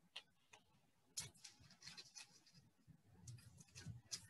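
Faint, scattered rustles and light taps of hands pulling cookie-dough scraps off parchment paper and pressing them into a ball.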